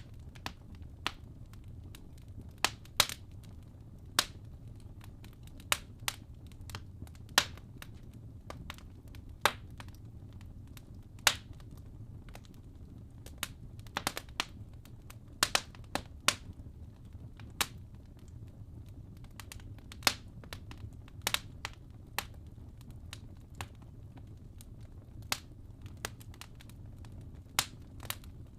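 Wood fire burning in a fireplace: irregular sharp crackles and pops of burning logs over a steady low rumble of the flames.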